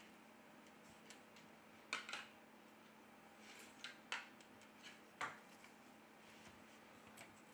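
Faint clicks and light knocks of a Huawei Y6P smartphone being handled and turned over on a tabletop, a few short taps spread through, the sharpest about two, four and five seconds in.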